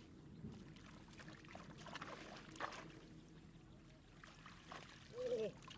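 Water trickling and splashing, with a few sharp splashes about two seconds in and a short pitched call near the end.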